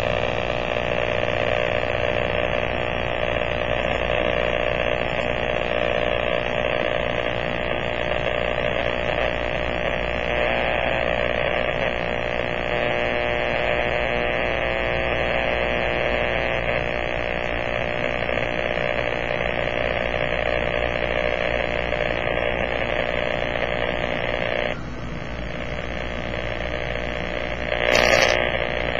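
Powerline interference heard through a Kenwood transceiver's speaker on 50.100 MHz AM: a steady, harsh buzz. The uploader suspects it comes from a damaged lightning arrester on a power pole. About 25 s in the buzz thins and drops a little, and near the end there is a short, louder crackle.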